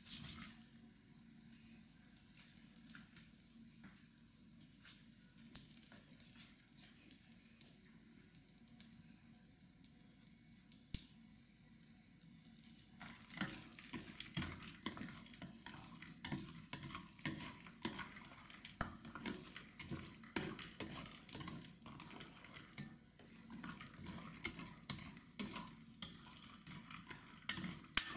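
Peanuts, walnut pieces and almond slivers sizzling in a stainless steel frying pan, stirred with a nylon spatula. There is a steady light hiss with an occasional click, and the scraping and stirring get much busier about halfway through.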